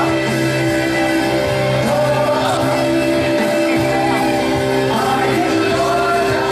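A Christian worship song: singing over long held instrumental notes.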